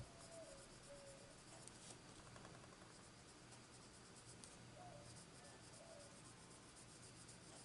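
Faint scratching of a Prismacolor colored pencil shading on paper.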